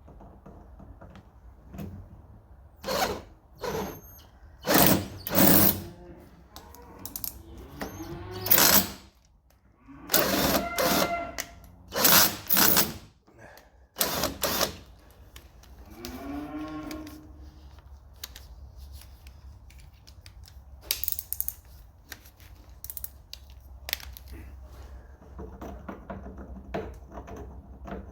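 Power drill driving an M8 tap into the door-hinge stud holes, run in short bursts with knocks and clicks of metal handling in between.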